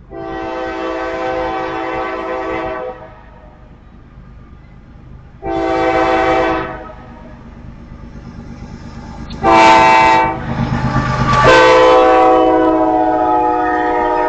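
CSX diesel freight locomotive sounding its horn for a grade crossing in the standard pattern: two long blasts, a short one, then a long one held as it reaches the crossing. The locomotive's diesel engine rumble swells as it closes in and passes.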